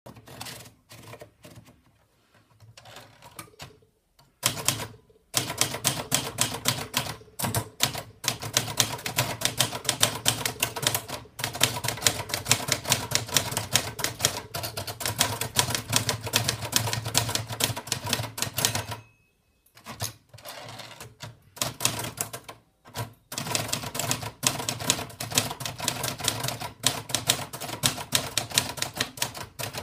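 Olivetti College portable manual typewriter being typed on: a few scattered keystrokes at first, then fast continuous runs of key strikes, broken by a pause about two-thirds of the way through before the typing resumes.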